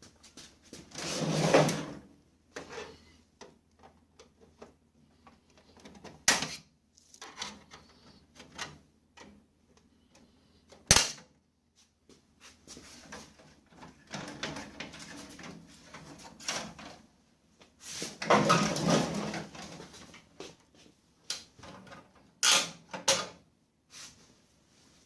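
Hard plastic and metal parts being handled: irregular clicks and knocks, with two longer scraping, rustling stretches and one sharp click about eleven seconds in. No steady motor or gear grinding is running.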